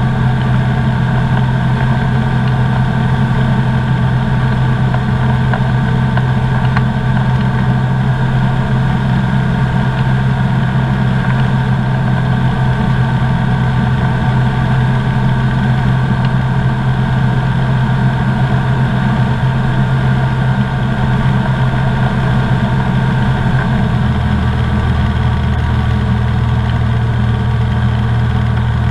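Comco Ikarus C42B ultralight's engine and propeller droning steadily in flight, heard from inside the open-framed cockpit. Near the end the low part of the drone shifts, a small change in engine note.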